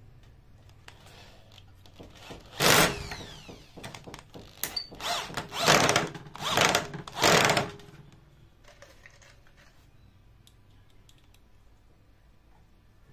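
Cordless drill boring into a finger-jointed rubberwood board in a run of short bursts, the bit biting into the wood and the motor spinning up and stopping each time, over about five seconds, then going quiet.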